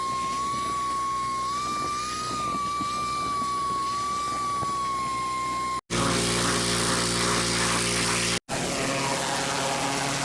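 Gas-engine pressure washer running steadily, with a high, slightly wavering whine for the first six seconds. After that the engine's drone and the hiss of spray come through, cut by two brief dropouts.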